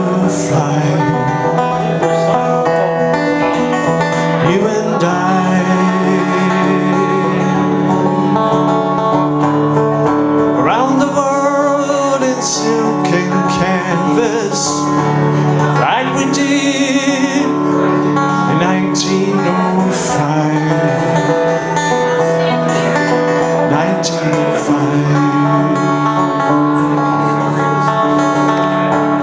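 Acoustic guitar strummed steadily in a country-folk song, with a man singing along at the microphone.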